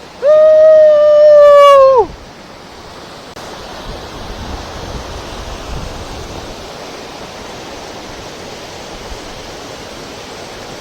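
A loud, long whoop of excitement from a person, held for nearly two seconds and dropping in pitch at the end, over the steady rush of a waterfall. The rush of water grows slightly louder about three seconds in.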